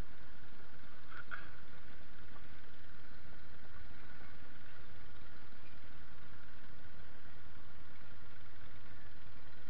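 Engine idling steadily, a constant low hum.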